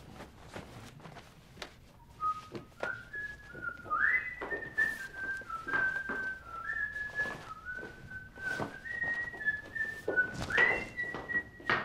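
A man whistling a tune, one note line stepping up and down, starting about two seconds in, over rustling and soft knocks of clothes being taken off.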